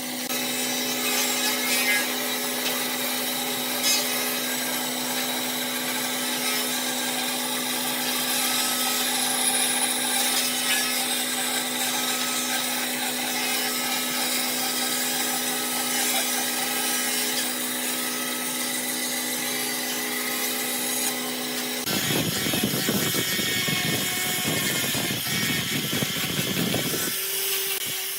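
An electric power tool running with a steady hum while it works wood. About 22 seconds in, the sound turns rougher and fuller for some five seconds, then settles back to the steadier hum.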